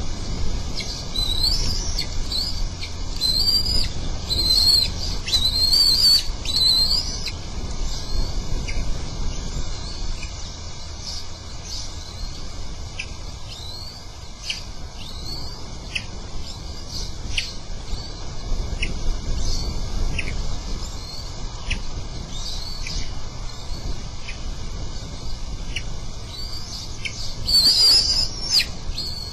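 Bald eagles calling: runs of high, thin chirping calls with quick upward-sliding notes, loudest over the first several seconds and again near the end, with scattered single short chips in between.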